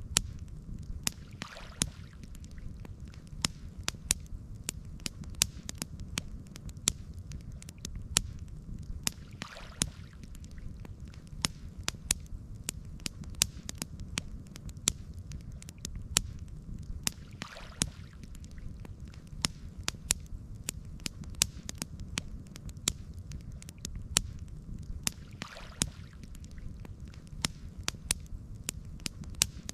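Campfire crackling: frequent sharp pops and snaps over a steady low rumble, with a soft hissing swell about every eight seconds.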